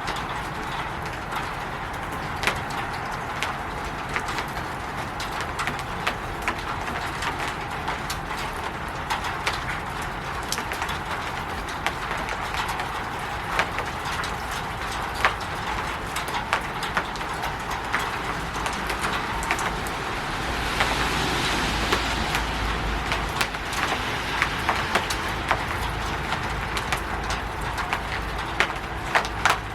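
Rain falling on a roof: a steady patter with many individual drops and drips ticking sharply. About two-thirds of the way through, a louder rushing swell with a low rumble rises for a few seconds, then eases off.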